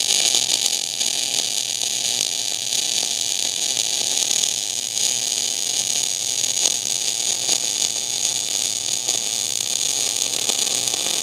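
MIG/MAG welding arc running a bead on a steel square-tube joint: a steady, loud hiss. The wire feed has been turned down, so less wire is being deposited and the bead lays lower.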